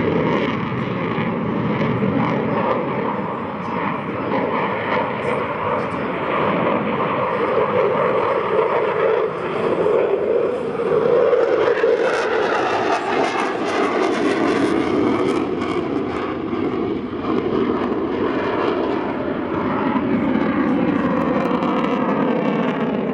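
Eurofighter Typhoon's twin turbofan jet engines roaring as the fighter flies its display. The roar is continuous and loudest about halfway through, with a sharper hiss for a few seconds as the jet comes closer.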